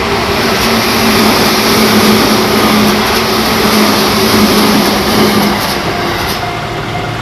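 Seibu Shinjuku Line electric train passing close by, a loud steady rumble of wheels on rail with a low motor tone. It is loudest a second or two in and eases off after about five and a half seconds.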